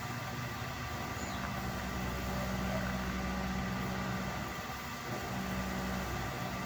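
A steady low mechanical hum under a constant hiss, the hum growing and fading over a few seconds.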